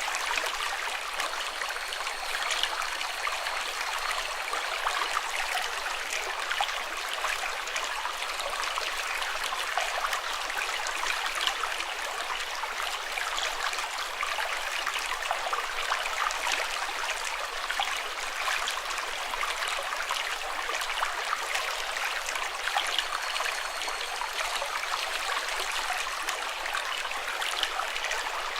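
Running water flowing steadily, an even rush with many small splashes and no break.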